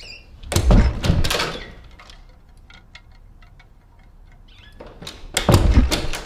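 A closet door moving and banging twice, about four and a half seconds apart: each time a deep thud with a rush of noise that lasts about a second.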